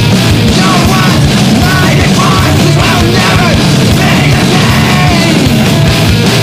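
Loud, dense screamo/noise rock music from a full band, with short sliding high pitches running through it.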